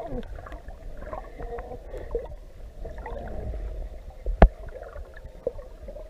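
Underwater sound picked up by a camera in a housing: a steady low water rumble with gurgling and short wavering sounds, and one sharp click about four and a half seconds in.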